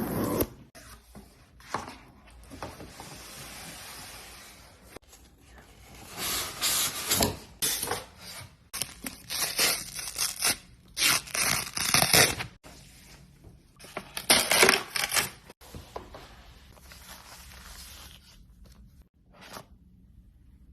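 Packaging of an iMac being torn and peeled open in several loud tearing bursts, with softer rustling and rubbing of the wrapping in between.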